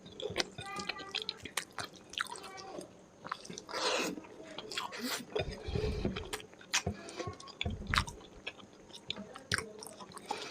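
Close-miked chewing of chicken curry and rice: irregular wet mouth clicks and smacks, with two dull low thuds about halfway through and near the end.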